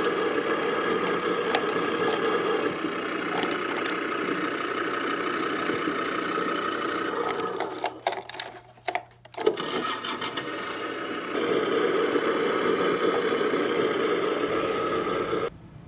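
Simulated diesel engine sound from an RC bulldozer's sound module, played through its small speaker. It runs steadily, mostly drops out about 8 seconds in, comes back a second or so later and cuts off sharply near the end.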